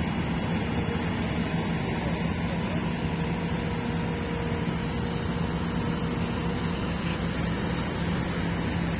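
Kobelco excavator's diesel engine running steadily at a constant pitch.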